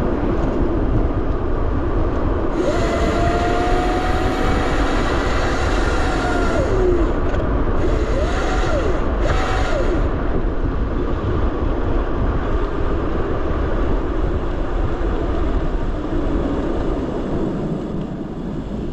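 Wind rushing over the microphone on a moving Razor RSF 650 electric motorcycle, with a faint motor whine that rises, holds and falls in pitch twice, between about three and ten seconds in.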